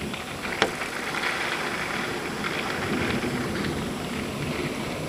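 Thunderstorm rain and gusting wind, a steady rushing that swells a little in the middle, with one sharp click about half a second in.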